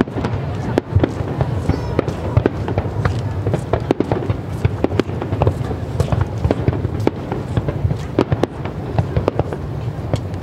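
Fireworks bursting: a rapid, irregular string of sharp bangs and crackles, several a second, over a steady low rumble.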